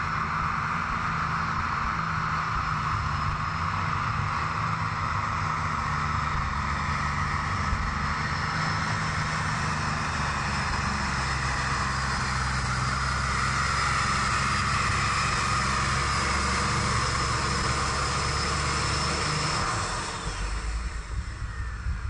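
Unlimited super stock pulling tractor's engine running flat out under load down the track, a steady drone that weakens and turns uneven near the end.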